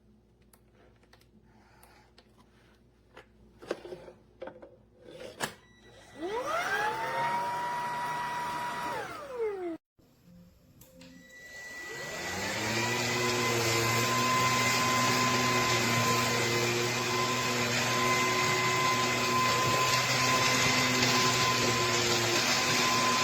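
Bissell PowerClean cordless stick vacuum motor. After a few clicks and knocks it is switched on about six seconds in and spins up with a rising whine. About three seconds later it is switched off and winds down, then it spins up again about eleven seconds in and runs steadily with a high whine.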